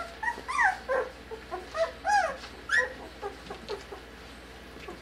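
Four-week-old puppies whining and yipping: a quick run of short, high calls that rise and fall in pitch, thinning out after about three seconds.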